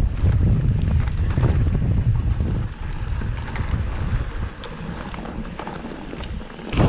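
Wind rumbling on the microphone as a Canyon Spectral AL 6.0 full-suspension mountain bike rolls down a dry dirt trail covered in dead leaves, with small clicks and rattles from the tyres and bike over the ground. Louder for the first few seconds, then quieter as the rolling eases.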